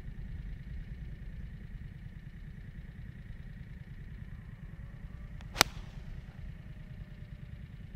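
Golf 5-iron striking a ball: a single sharp crack a little over five and a half seconds in, over a steady low rumble.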